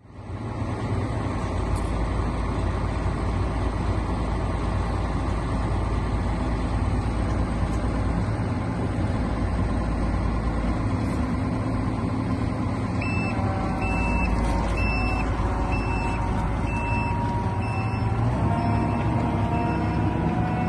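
A John Deere 1170 combine harvester's engine runs steadily. About two-thirds of the way through, a reversing beeper starts, giving a short high beep roughly once a second as the machine backs up.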